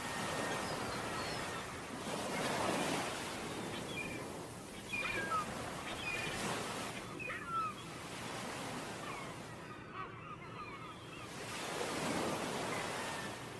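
Sea waves washing onto a beach, swelling twice into a louder surge, with short high bird calls scattered over the surf.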